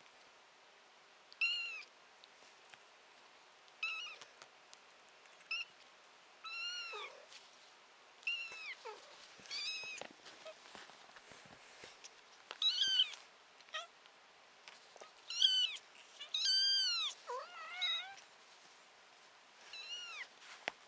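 Kitten meowing over and over: about a dozen short, high-pitched meows a second or two apart, each rising and then falling in pitch, a few louder and longer ones in the second half.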